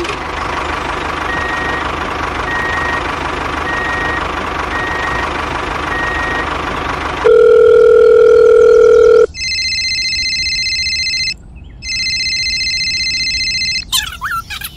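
Phone ringtone sound effect: a loud steady beep lasting about two seconds, then two ringing bursts of about two seconds each with a short gap between. Before it comes several seconds of steady rushing noise.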